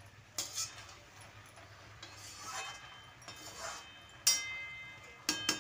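Metal spatula scraping and clinking in an iron kadhai while vegetables are stirred, then a sharp metallic clang that rings on for nearly a second, followed by a few quick clinks near the end.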